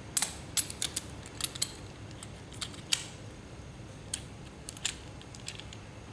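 About fifteen light, sharp clicks and clinks at irregular intervals, from small hard fittings being handled and fitted together, over a faint steady hum.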